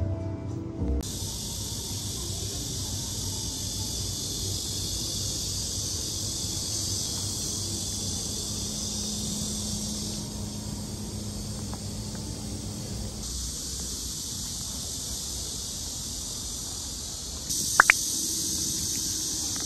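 Cicadas in a steady, dense summer chorus, the buzzing stepping louder or softer a few times. A brief sharp squeak near the end.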